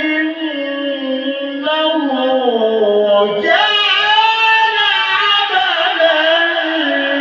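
A man's solo voice in melodic Quran recitation (tilawah), holding long, ornamented vowel notes. The pitch slides down step by step, then leaps up sharply about three and a half seconds in and is held.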